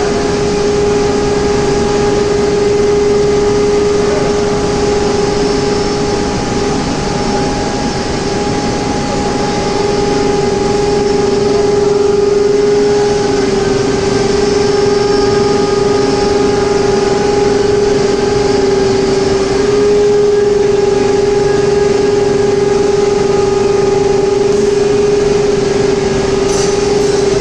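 Steady, loud machinery noise from an induction furnace with its fume extraction running: a strong constant hum over an even rushing noise.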